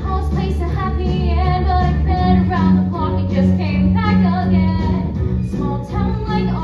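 Teenage girls' voices singing a musical-theatre song over instrumental accompaniment with a steady bass line.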